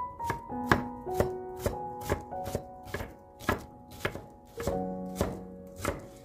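Chef's knife dicing a white onion on a wooden cutting board, the blade knocking on the board about three times a second. The chopping stops just before the end, with soft background music of held notes underneath.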